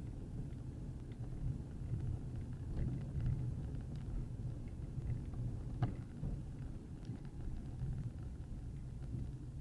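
Low, steady rumble of a car driving slowly over rough, patched asphalt, heard from inside the cabin through a windscreen dashcam's microphone. Scattered faint clicks run through it, with one sharper click about six seconds in.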